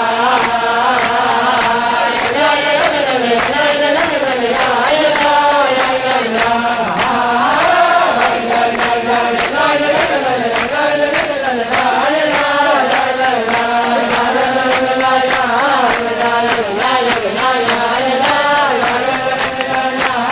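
A group of voices singing a wordless Ashkenazi nigun on 'la la' syllables over a steady beat.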